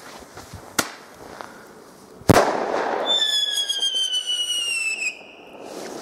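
A Flashbang firecracker goes off with one loud bang a little over two seconds in. Then a Heuler whistler firework gives a single high whistle that slowly falls in pitch for about two seconds and cuts off suddenly.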